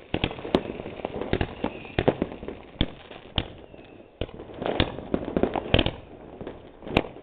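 Fireworks and firecrackers banging at irregular intervals, a quick scatter of sharp bangs and pops, some much louder than others, thickest a little past the middle.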